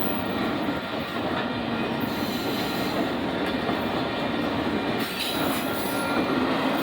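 Union Pacific auto-rack freight train rolling past: a steady rumble of wheels on rail with a faint high-pitched wheel squeal.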